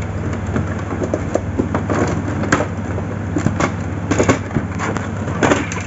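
Irregular plastic clicks and knocks as the parts of an opened inkjet printer are handled and lifted apart, over a steady low hum.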